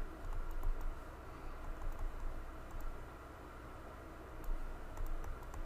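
Faint, scattered light clicks over a low steady hum, with a few louder clicks about half a second in and again near the end.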